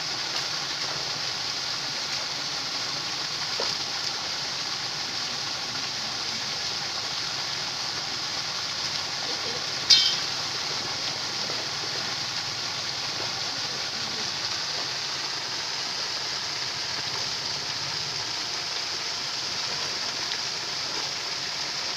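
Steady hiss of rushing, churning water against a fish net, with one sharp splash about halfway through.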